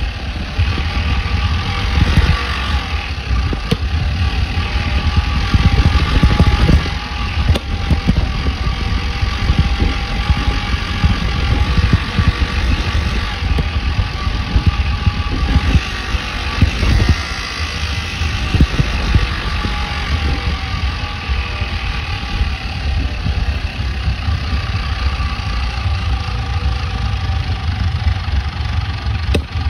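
Steady, muffled rumble of a bike ride heard from inside a fanny pack, with a few short knocks from jostling along the way.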